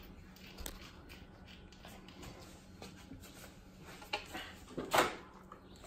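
Light scattered taps and knocks of an induction heater's tip working against an aluminium fender panel, the loudest knock about five seconds in, over a faint steady hum.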